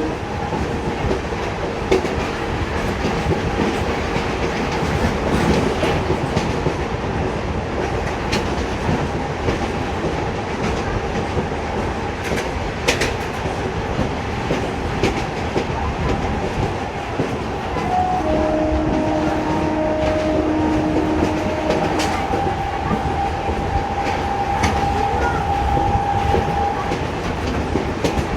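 Indian Railways passenger train running along the track: a steady rumble with scattered clicks from the wheels. A steady tone sounds over it in the second half, changing pitch about two-thirds of the way through.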